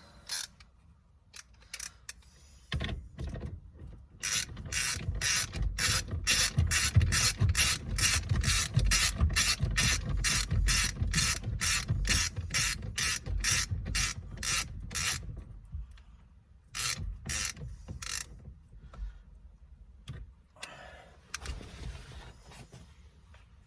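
Hand ratchet wrench cranked in steady strokes, about two sharp clicking strokes a second for some ten seconds, tightening a bolt, likely the steering wheel's retaining bolt. Scattered knocks and handling noises come before and after.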